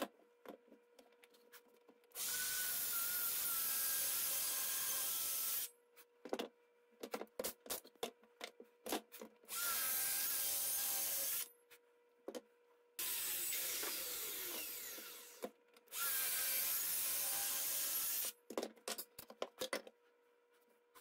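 Cordless compact circular saw (Bosch Professional) cutting grooves across a pine board: four runs of a few seconds each, the third trailing off as the blade spins down, with clicks and knocks of the board and tool being handled between cuts.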